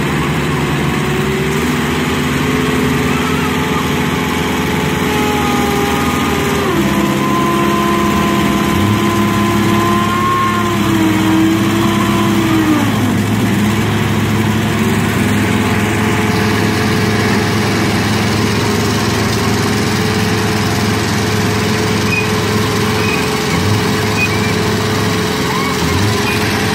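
Engine of a truck-mounted recovery crane running steadily under load as it hoists an overturned tanker truck, its pitch stepping down and shifting a few times about halfway through.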